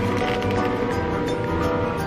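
Background music: a melody of held notes that changes pitch in steps, over a steady low pulse.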